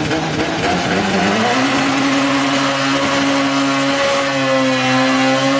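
A Toyota drag car's engine revs up over about a second and a half and is then held steady at high revs during a front-wheel burnout at the start line.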